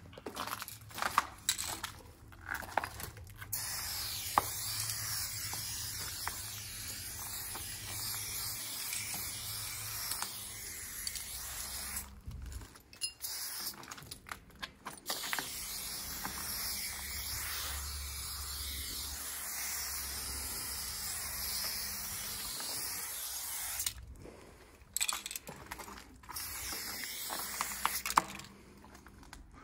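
Aerosol spray paint can spraying onto a concrete wall in long hisses several seconds each, broken by short pauses. A few sharp clicks come in the first few seconds.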